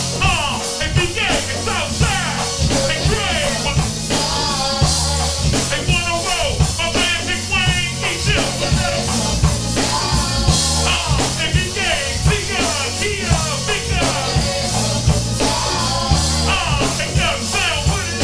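Rock music with a steady drum beat and bass line, possibly with a voice singing.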